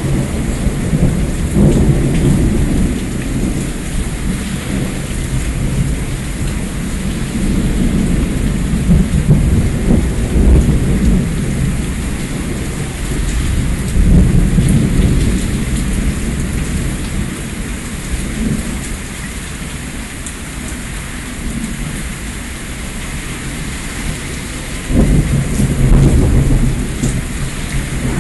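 Thunderstorm: steady rain falling while thunder rumbles again and again, the deepest rumbles swelling about 14 seconds in and again near the end.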